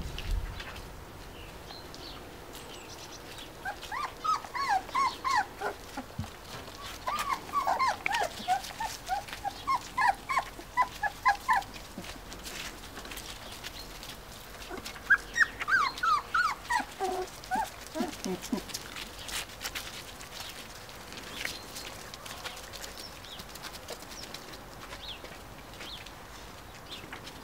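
Four-week-old Finnish Lapphund puppies yipping and squeaking in quick runs of short high calls, in three bouts, the last bout sliding lower near its end.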